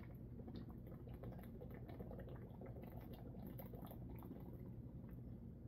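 Faint gulping and swallowing as a man drinks steadily from a bottle, a run of small irregular wet clicks.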